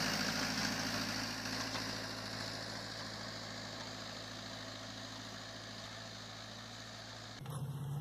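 Compact tractor engine running steadily while pulling a plow through the soil, slowly getting quieter. About seven and a half seconds in, the sound cuts abruptly to a different small tractor's engine.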